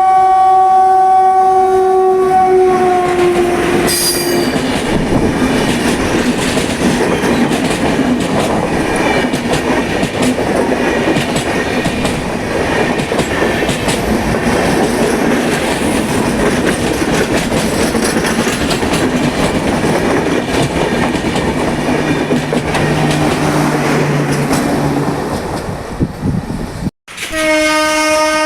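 An Indian Railways locomotive horn sounds a long steady blast that dips slightly in pitch and stops about four seconds in. The running noise of a passing train follows for about twenty seconds. Near the end the sound cuts off abruptly and a new horn blast begins.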